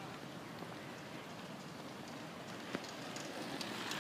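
Faint steady outdoor background hiss, with a few soft ticks and one sharper click near three seconds in.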